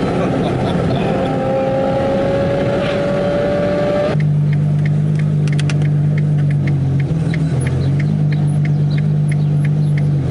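Ferrari 812 Superfast's V12 with a Novitec straight-pipe exhaust, heard from a moving car: first a loud, dense engine and road noise with a slowly rising pitch. About four seconds in it changes abruptly to a steady low engine drone with a regular light ticking about twice a second.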